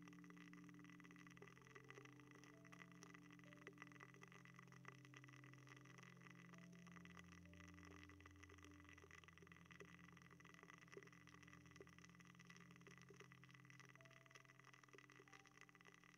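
Faint, close-up crackling and scratching on the microphone: an ASMR ear-cleaning trigger, with a low steady drone underneath.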